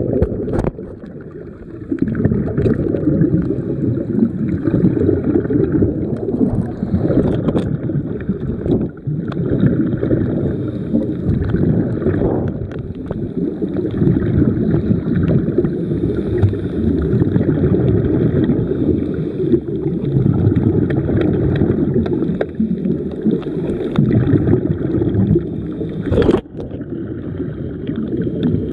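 Underwater sound picked up by a submerged camera: a continuous low rumble of water moving against the camera as it travels over the seabed, with a few sharp clicks.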